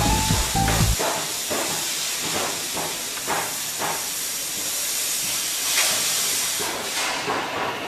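Oxy-fuel cutting torch hissing steadily as it cuts steel, with faint pulses about twice a second. A machine's running hum stops about a second in.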